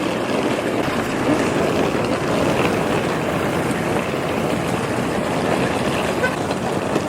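Helicopter running close by: a loud, steady roar of engine and rotor that cuts off suddenly at the end.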